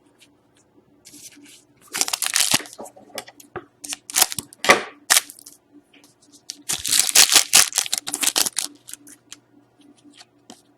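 Packaging wrapper being torn open and crinkled in hand, in three loud rustling rips with small clicks between.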